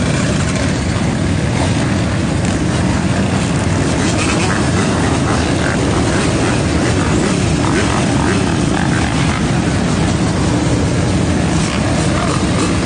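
Many motorcycle, dirt bike and ATV engines running together, a loud, steady, dense engine rumble with no pauses.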